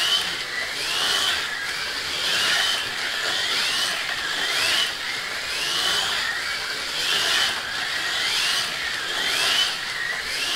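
1/43 scale rally slot cars running laps on a track, their small electric motors giving a whine that rises and falls in pitch about once a second as they speed up and slow down.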